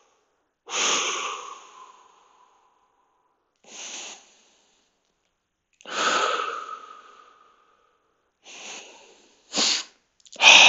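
A man's forceful breathing while holding a deep hip stretch, done to loosen a tight hip: five or six loud, hissing exhales, each starting suddenly and fading over about a second, the first trailing off in a faint whistle. The last few come closer together near the end.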